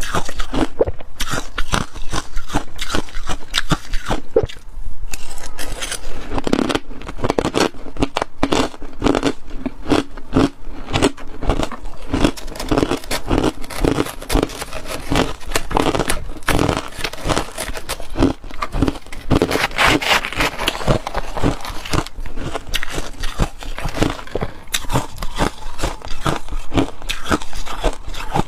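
Ice being bitten and chewed close to the microphone: rapid crunching and cracking, one crunch after another.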